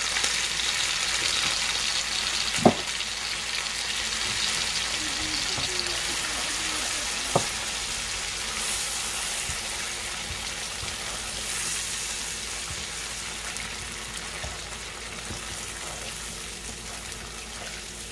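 Chopped peppers and chillies sizzling in hot oil in a frying pan while ketchup and sauces are stirred in with a silicone spoon. There are two sharp knocks, about 3 and 7 seconds in, and the sizzle softens toward the end.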